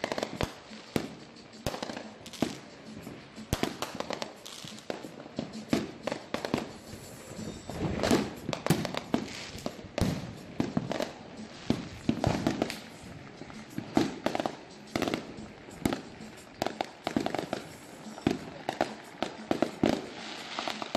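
Many fireworks going off at once: aerial shells bursting in irregular bangs and crackles, thickest about eight to ten seconds in.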